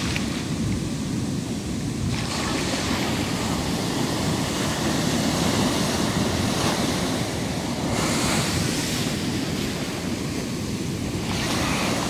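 Sea waves breaking and washing up a sandy beach, surging in three times, under a steady low rumble of wind buffeting the microphone.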